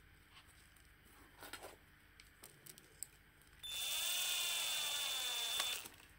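Small electric drill-driver running for about two seconds, driving a screw into a mains plug: a steady motor whine that dips slightly in pitch at first, then holds and cuts off. Light handling clicks on the plug before it.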